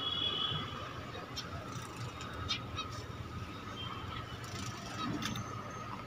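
Jumbo zebra finches giving a few short, high calls in the aviary, with faint scattered clicks over a steady faint background hum.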